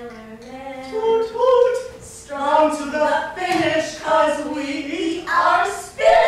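A woman singing unaccompanied, in a run of held notes that slide in pitch.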